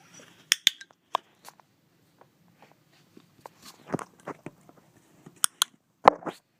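Irregular sharp clicks and taps, some in quick pairs, the loudest about six seconds in: an Australian Shepherd mouthing a wall light switch, with a handler's training clicker marking it.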